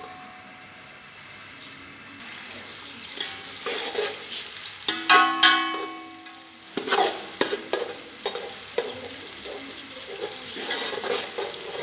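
Sliced onions frying in oil in an aluminium pot, stirred with a slotted steel spoon: a steady sizzle that grows about two seconds in, with scraping and sharp metal clinks that ring briefly as the spoon knocks the pot, loudest about five seconds in.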